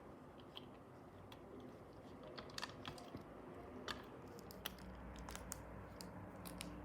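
Faint, scattered light clicks and taps, irregular and a little denser after the first couple of seconds, with a low steady hum coming in about five seconds in.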